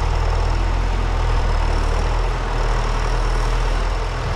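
Heavy engine of the loader dumping and packing sawdust, running steadily at low revs, with a faint high whine above the engine.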